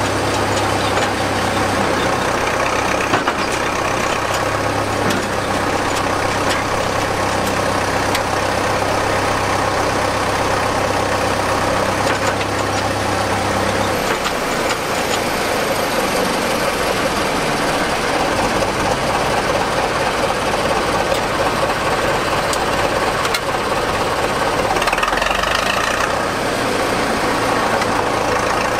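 Vintage Priestman Tiger cable excavator's engine running steadily as the machine works its bucket. A deep hum underneath drops away about halfway through.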